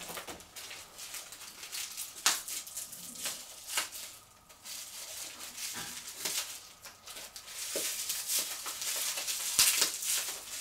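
Packaging crinkling and rustling as a small wrapped item is unwrapped by hand. It comes with a few sharp snaps and a longer stretch of crinkling near the end.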